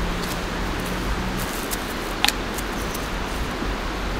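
Steady rush of a nearby river. A few light clicks and rustles come from a person moving about on dry leaf litter, the clearest about two seconds in.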